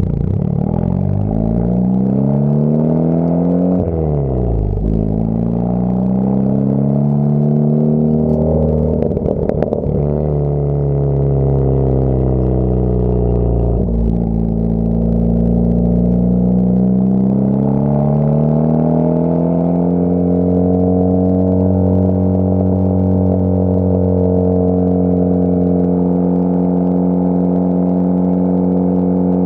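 Honda Civic Type R FK8's turbocharged four-cylinder running through a Tomei full-titanium muffler, pulling up through the gears: the engine pitch climbs and drops at each shift, then settles into a steady cruise with a constant exhaust drone over the last third.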